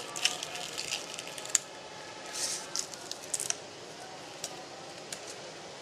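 Decal sticker being peeled by hand from its sheet: scattered small crackles and clicks of the film lifting away, over a steady hiss.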